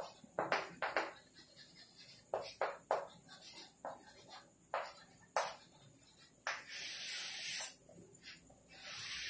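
Chalk writing on a blackboard: a run of short scratchy strokes and taps, then two longer scraping strokes in the second half.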